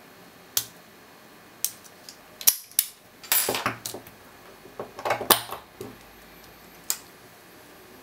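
Brass Master Lock No. 150 padlock being handled just after picking: a string of sharp metallic clicks and clatter as the shackle swings open and the lock knocks against a wooden table, busiest around the middle.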